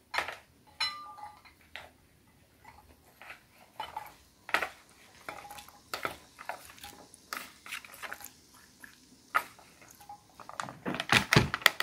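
Metal spoon scooping cooked white beans out of a plastic container and tipping them into a ceramic bowl: scattered scrapes, clinks and soft plops, with a quick run of louder knocks near the end.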